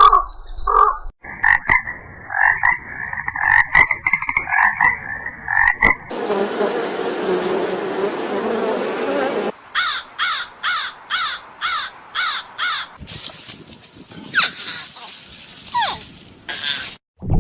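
A string of different animal calls spliced one after another: a rapidly pulsing, croak-like call, a few seconds of hiss, a quick run of about nine short falling chirps, then a high buzzing hiss that cuts off suddenly near the end.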